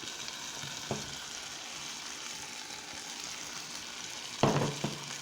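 Chopped onion, chili and garlic frying in oil in a pan, sizzling steadily. A small click about a second in, and a sharp knock near the end followed by a lighter one.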